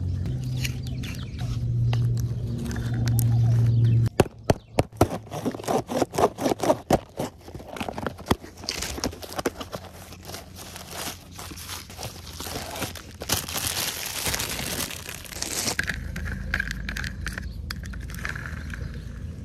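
A low steady hum for the first few seconds. Then a cardboard box is opened and its crumpled newspaper packing unwrapped by hand: a run of sharp clicks and crackles, followed by a long crinkling rustle of paper.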